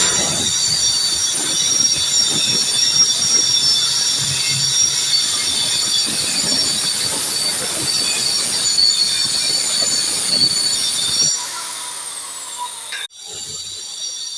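A power tool running with a loud, high-pitched whining squeal made of several steady tones over a noisy hiss. It drops off to a quieter level about 11 seconds in.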